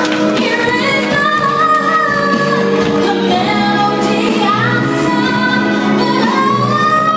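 A woman singing a ballad with instrumental accompaniment. She holds long notes and glides up to a high held note near the end.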